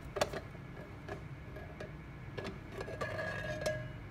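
The cylindrical outer shell of a Crazybaby speaker being slid up off its inner body, giving a series of light clicks and knocks. About three seconds in there is a short squeaky scrape.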